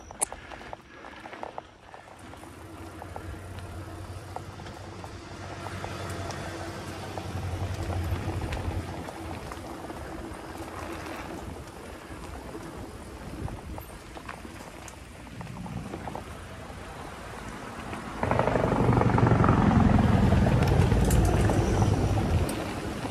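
Wind buffeting the microphone and tyres rolling over a dirt singletrack as a Specialized Stumpjumper mountain bike is ridden, with a few sharp rattling clicks in the first two seconds. About eighteen seconds in the rumble jumps suddenly louder for around four seconds, then drops back.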